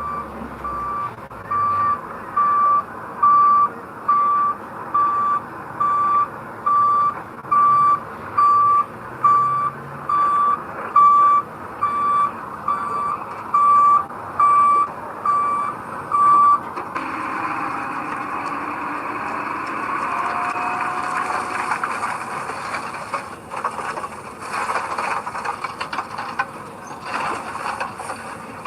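Reversing alarm on a heavy construction vehicle beeping a steady single tone about every three-quarters of a second, over the machine's running engine. The beeping stops a little past halfway, leaving the engine and working noise of the machine.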